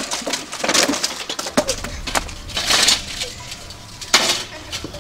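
Plastic bottles, drink cans and small boxes swept off a glass-topped table and the metal-framed table tipped over: a string of clattering knocks and rattles, the loudest about four seconds in.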